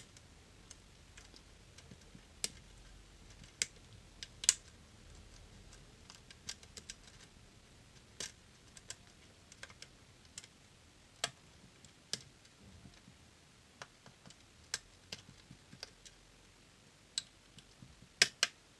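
Irregular small metallic clicks and ticks of a hook pick working the pins inside a DOM System D lock cylinder under tension, with a sharper click about four and a half seconds in and two close together near the end.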